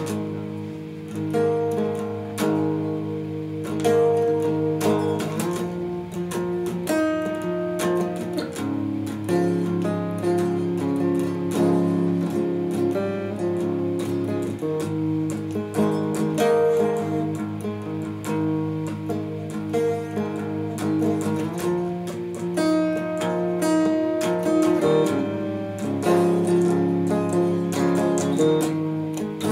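Electric guitar being picked, playing notes and chords that ring over one another in a changing progression.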